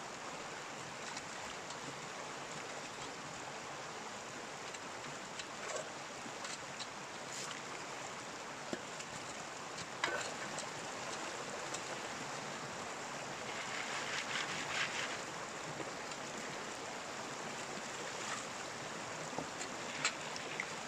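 Stream water running steadily while gold is panned, with gravel clicking against the pan now and then and a louder sloshing stretch about two-thirds of the way through.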